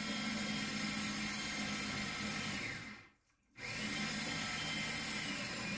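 Rechargeable drill spinning a drill-driven oil pump steadily, pumping oil into an LS V8 to pre-lube it and hold about 20 psi oil pressure. The sound cuts out completely for about half a second near the middle.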